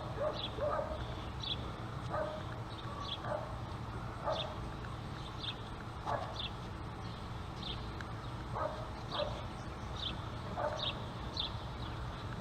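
A dog whimpering and yipping in short calls, about one or two a second, over a steady low hum.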